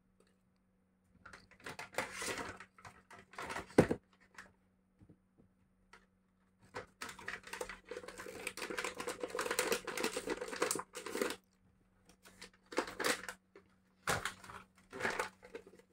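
Crinkling and rustling of plastic-foil dog-treat pouches being torn open and handled, in bursts, with one sharp snap about four seconds in. A faint steady hum runs underneath.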